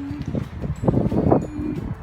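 Wind buffeting the microphone in irregular gusts, loudest about a second in, with a low, held animal call trailing off at the start.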